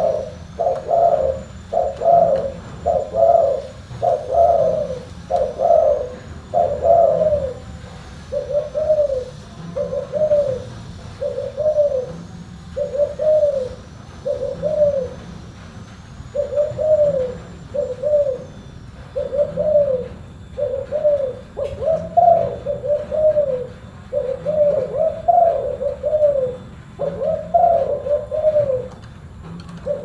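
Spotted dove cooing: a long run of deep, arched coos at about one a second, broken by a couple of short pauses.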